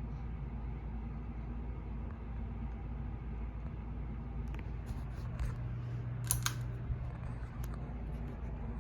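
52-inch Hunter Oakhurst II ceiling fan motor running with a steady low hum, turning slowly because of a bad capacitor. A few sharp clicks come in the middle, two of them louder about six seconds in.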